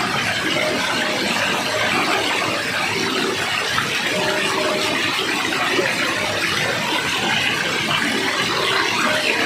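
Water rushing steadily, a continuous even wash of noise.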